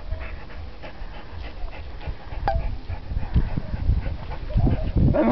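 American Staffordshire terrier breathing hard and panting through its nose, its jaws clamped on a rubber tug toy. A single sharp click comes about halfway through.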